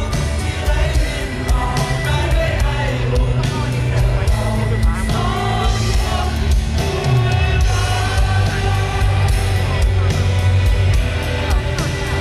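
Live rock band playing, loud through a PA: a male lead singer sings over amplified electric guitar, bass and a steady drum beat.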